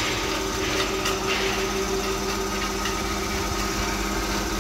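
Thyristor-controlled DC motor running steadily at about 1000 rpm in reverse under a mechanical brake load that is being increased, giving a steady hum and whine. A brief scrape about a second in.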